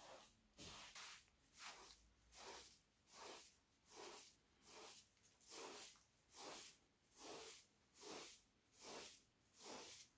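Short-handled straw hand broom sweeping a pile carpet: a steady run of soft swishing strokes, a little more than one a second.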